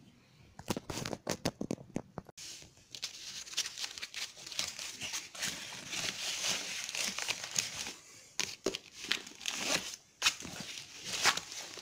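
Rustling and crinkling of a school backpack being packed, with folders and papers sliding in. A few sharp knocks come in the first couple of seconds.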